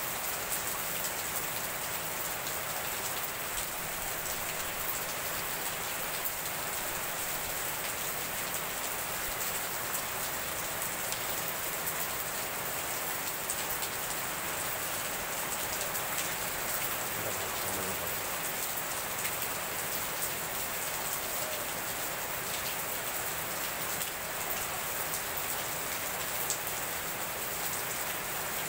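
Heavy rain pouring down steadily, splashing onto wet paving and leaves.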